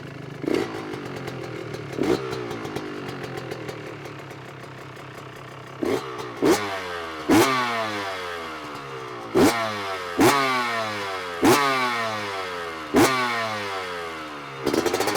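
Yamaha YZ125 two-stroke engine running through a freshly fitted FMF shorty slip-on silencer. It idles with a couple of light throttle blips, then from about six seconds in it is revved sharply about seven times, each rev rising quickly and falling back to idle.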